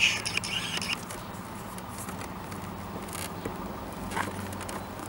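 A key turning in a motorbike's rear seat lock, with a few light clicks and scrapes of the seat being handled, over a steady low hum.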